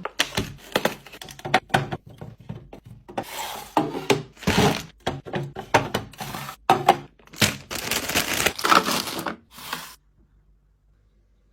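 Items being handled and set down: a quick run of knocks, clicks and rustling that stops abruptly about ten seconds in.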